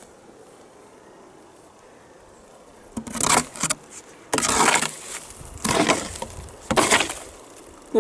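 Spruce boughs rustling and scraping close against the camera as it is pushed through the brush, in four loud bursts after about three seconds of quiet.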